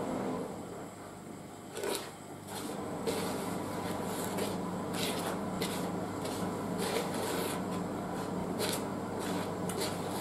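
Wooden spoon stirring dry muffin mix of flour, sugar and bicarbonate of soda in a large mixing bowl: repeated scraping, rubbing strokes, about two or three a second.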